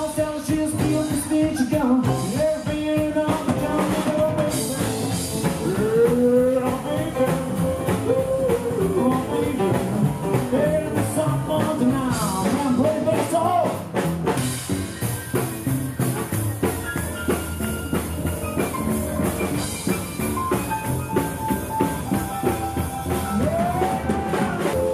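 Rock 'n' roll band playing live, with a keyboard, a drum kit and a singing voice.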